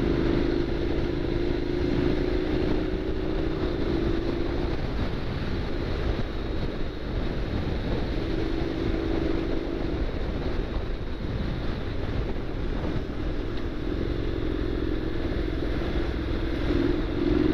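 Honda NC750X parallel-twin engine running as the motorcycle rides along, under heavy wind rumble on the bike-mounted camera's microphone. The engine's steady note fades in and out under the wind and climbs near the end.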